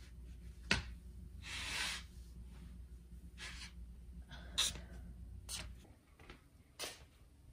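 Soft rustling and scuffing of a person pulling on slippers and getting up from a bed on a tiled floor, with one sharp knock about a second in and a few short swishes after it, over a low room hum that stops near the end.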